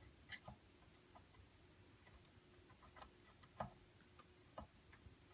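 Near silence broken by a handful of faint, irregular ticks and clicks from desoldering: a soldering iron working solder wick over old joints on a circuit board.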